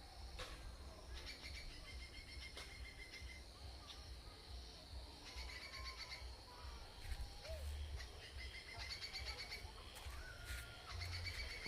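Small birds singing: a quick pulsed trill, repeated about four times with pauses between, over a low uneven rumble.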